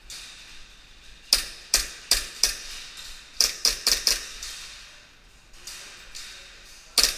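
Airsoft pistols firing: four sharp cracks about a second in, five more in quick succession about three and a half seconds in, and another fast burst at the very end.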